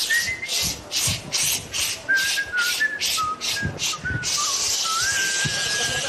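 A person whistling a wandering tune of several held notes, over a hiss that comes in short regular bursts about two to three times a second.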